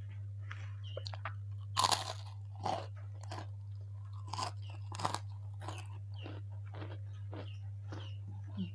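A crisp white kerupuk (puffed cracker) being crunched in the mouth. A few loud, sharp crunches come in the first five seconds, then steadier chewing about two to three times a second, over a steady low hum.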